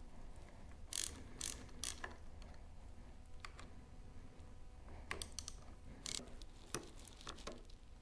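Faint clicks and ticks from a hand tool working the bolts of a motorcycle's handlebar brake master cylinder clamp, coming in short groups: three clicks about a second in, a cluster about five seconds in, then a few scattered ones.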